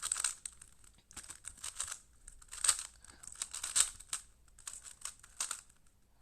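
Smart Rubik's cube being turned fast by hand during a speedsolve: quick plastic clicks and rattles of the layers rotating, in irregular flurries with short pauses.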